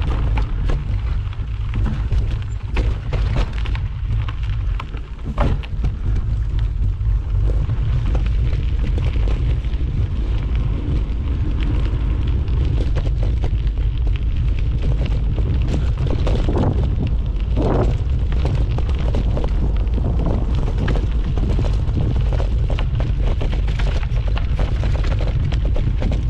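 Mountain bike descending a rough trail: wind buffeting the microphone makes a constant low rumble, and rapid clicks and knocks come from the bike rattling over stones.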